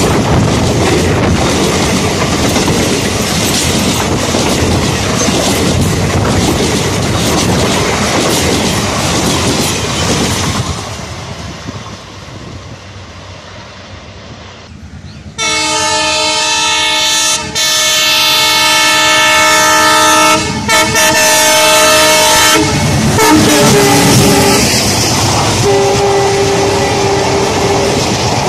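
Express passenger coaches rolling past close by, wheels clattering over the rail joints. The sound fades for a few seconds, then a diesel locomotive's horn starts suddenly: a loud multi-tone blast lasting about seven seconds, broken twice by brief gaps. After it, coaches run past again, with one more single steady tone near the end.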